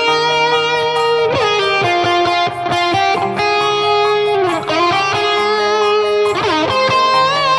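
Background music: a sustained, bending electric guitar melody over a steady beat.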